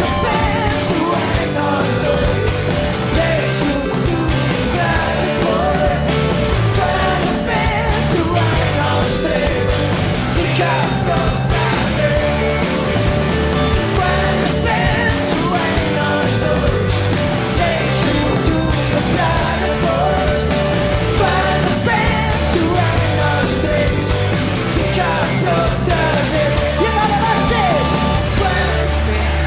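Live rock band playing, with a singer singing into a microphone over drums and guitars.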